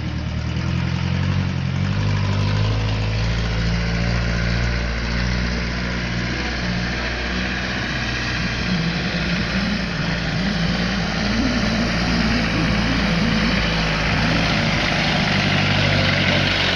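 1948 Bedford bus engine running steadily as the bus drives slowly across a gravel yard and comes up toward the microphone. The engine note wavers in the middle and grows a little louder toward the end.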